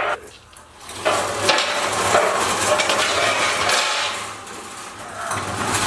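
Metal clattering and scraping: a sharp clank right at the start, then a few seconds of continuous metal-on-metal rattling and scraping that eases off and picks up again near the end.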